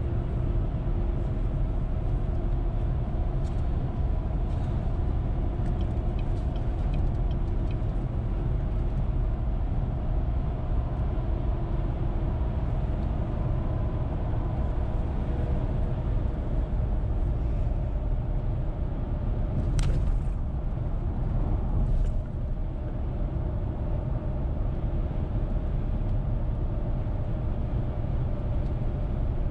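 Car driving at highway speed: a steady low rumble of tyres and engine, with two short knocks about twenty seconds in.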